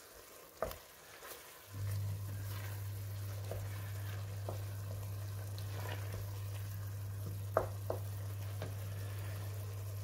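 Chopped spinach frying in oil in a stainless steel pot with a faint sizzle, cooked down until the oil comes up. A wooden spoon stirs it and knocks against the pot a few times, most sharply twice in quick succession about three-quarters of the way through. A steady low hum underlies it, absent for about the first two seconds.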